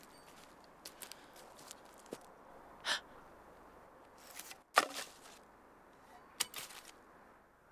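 Leather shoes stepping in dry grass and twigs: scattered crunches and small snaps, with a short breathy rush about three seconds in. The loudest, sharpest snap comes about five seconds in.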